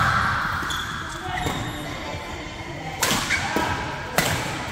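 Badminton rackets striking a shuttlecock during a doubles rally: two sharp hits about a second apart, near the end, echoing in a large sports hall, with voices in the background.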